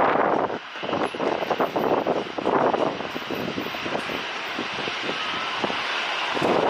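Boeing 737 airliner's jet engines making a loud, rushing noise as the plane comes in to land.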